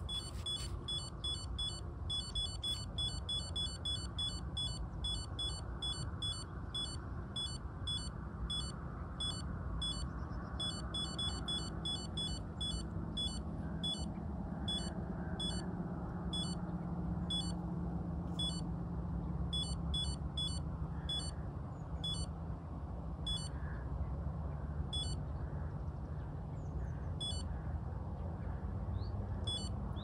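Electronic carp-style bite alarm on a rod pod beeping as line moves over its roller: quick runs of short high beeps at first, then slower, irregular single beeps. A steady low rumble runs underneath.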